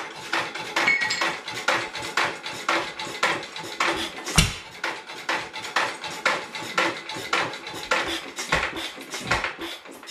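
A 1920s 2 hp Headless Witte hit-and-miss engine running on its own. It fires only now and then, with a few heavy low thumps, the strongest about four seconds in and more near the end. Between firings it coasts with a steady metallic clicking about three times a second.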